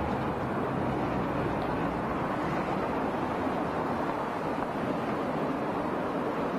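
Cars driving past close by, a steady rush of road-traffic noise. A low engine hum fades out in the first second or two.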